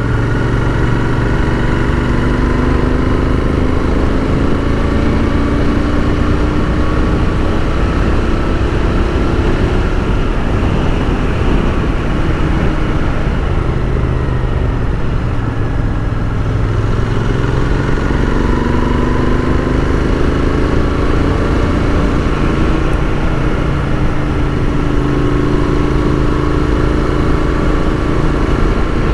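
Royal Enfield Continental GT 650's parallel-twin engine under way. Its pitch slides down over the first dozen seconds, bottoms out around halfway, then climbs again through the last third, over a steady rushing noise.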